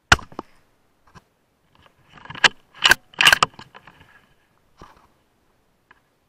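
A single suppressed shot from a Tikka T3x bolt-action rifle in .308 Win, one sharp crack. About two seconds later comes a quick run of metallic clicks and clacks as the bolt is cycled to chamber another round.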